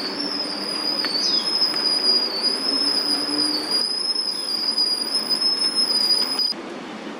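Steady high-pitched insect drone over a low hum of distant city traffic, with a brief falling whistle about a second in; it cuts off sharply about six and a half seconds in.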